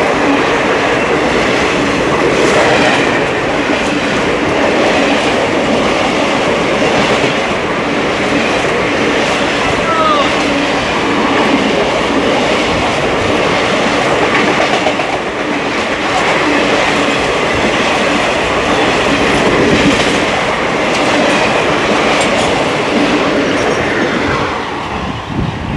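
Ernakulam–Patna Superfast Express passenger coaches rushing past at speed: a loud, steady rumble and clatter of wheels on the rails.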